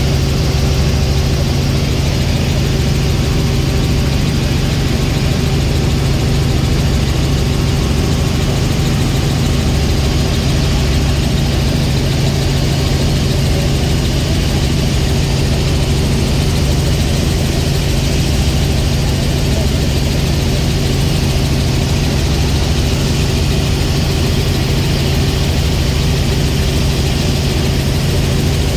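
Helicopter engine and rotor noise heard from inside the cabin in flight: a loud, steady drone with a constant low hum under a wide hiss.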